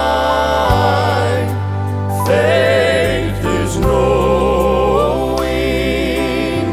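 Background song: a voice holding long, wavering notes over steady bass notes that change every second or two.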